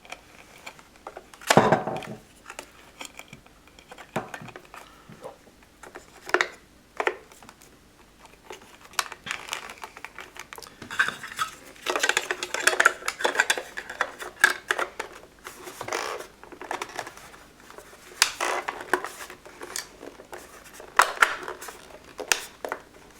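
Irregular plastic clicks, knocks and rattles as an RC radio transmitter's case and parts are handled and fitted back together by hand, with a busier stretch of clattering around the middle.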